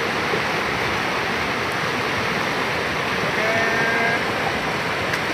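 Rushing river rapids: shallow water pouring steadily over and between boulders.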